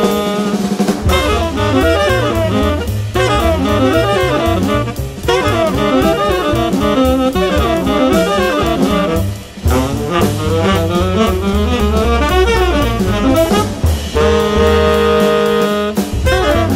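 Jazz quartet of two tenor saxophones, double bass and drums playing. The saxophones run fast, busy lines over walking bass and drum kit, and settle into long held notes together near the end.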